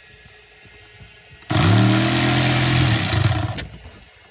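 Jigsaw running for about two seconds, cutting through the closet panel: a steady motor whine over the rasp of the blade, starting suddenly about a second and a half in and stopping abruptly.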